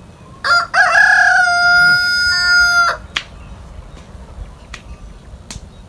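Rooster crowing once: a loud call of about two and a half seconds that starts in short broken notes, then holds one long steady note and cuts off sharply.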